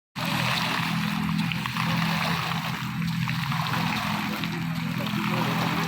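Water running and trickling with small splashes, over a steady low hum.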